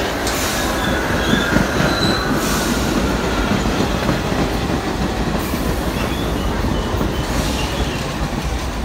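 MTA R68/R68A subway train running into the station along the platform track, a steady loud rumble of wheels on rail. Brief high-pitched wheel squeals come about two seconds in.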